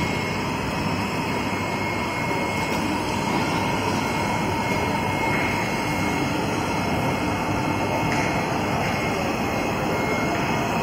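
Rubber extrusion and cutting production-line machinery running steadily: an even mechanical noise with a faint high whine over it.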